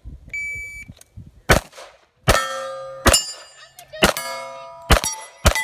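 An electronic shot timer gives one short beep, then a handgun fires six shots about a second apart. Most of the shots are followed by the ring of a hit steel target plate.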